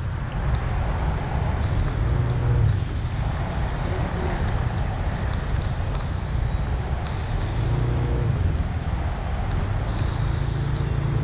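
Vehicle engines on a flooded street, rising and fading as they pass, over a steady rushing noise with wind buffeting the microphone.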